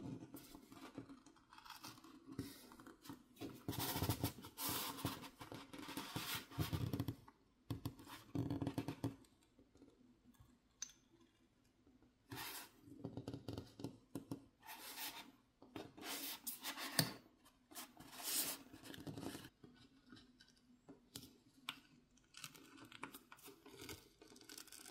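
Pry tool working around the edge of an iPhone 16 Plus back glass, scraping and cutting through the heat-softened adhesive in short, uneven scratchy strokes, with a pause of a couple of seconds near the middle.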